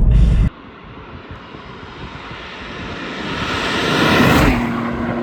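A Ford Fiesta ST's 1.5-litre turbocharged three-cylinder engine driving past: heard from inside the cabin for the first half second, then cut to the outside, where the car approaches, gets louder, passes about four and a half seconds in and drops away with a lower, steadier note as it recedes.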